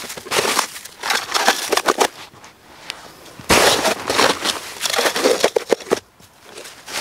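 A metal pot scraped and pushed through crusty, granular snow to scoop it up, with crunching and scraping in two spells, the second starting about halfway through.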